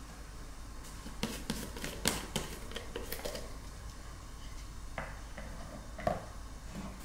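Plastic screw lids being twisted off plastic jars and the lids and jars set down on a wooden table: a run of light clicks and knocks in the first half, then two separate knocks about five and six seconds in.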